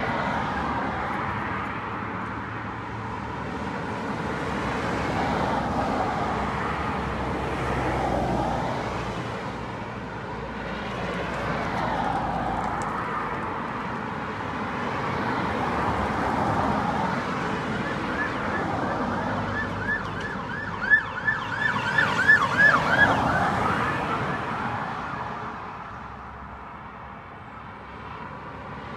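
Ambulance siren with road traffic: a slow rising and falling wail that switches to a fast, rapidly repeating yelp about eighteen seconds in, then fades away near the end.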